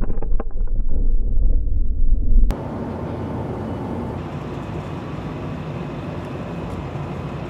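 Wind and water rushing past an action camera on a speeding target boat, buffeting heavily, with a few sharp cracks from the aftermath of a blast on deck. About two and a half seconds in, the sound cuts to a quieter, even rushing noise.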